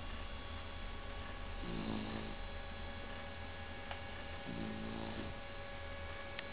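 Shar-pei snoring in its sleep: two short snores about three seconds apart, over a faint steady hum.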